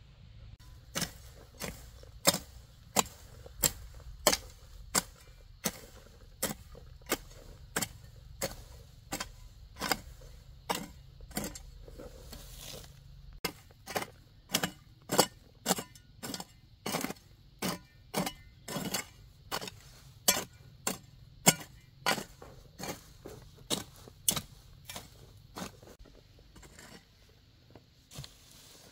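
A long-handled hand hoe chopping into soil: sharp, regular strikes at about three every two seconds. They stop about three seconds before the end.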